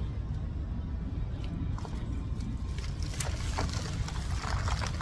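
Hands digging and sifting through loose potting soil in a potato bucket, with rustling and crackling that thickens in the last couple of seconds. A steady low rumble sits underneath.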